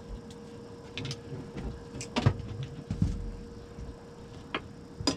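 Scattered knocks and clicks of fishing gear and a landing net being handled on a boat, over a faint steady hum.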